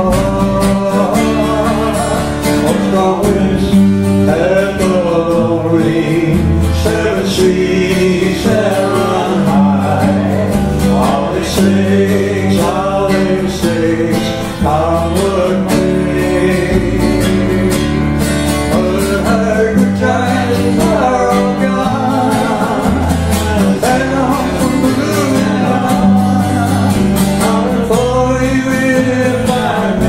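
Two acoustic guitars strumming a slow country-folk song, with a voice carrying the melody at times.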